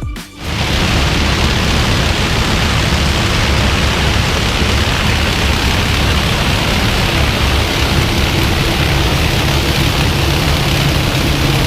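Diesel engine of a large harvest machine running steadily: a low drone under a dense rushing noise, starting as the music cuts off at the very start.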